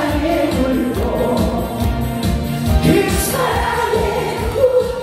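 Korean trot song sung by a man into a handheld microphone over an amplified backing track with a steady beat. The line ends on a long held 'a-a-a' note in the second half.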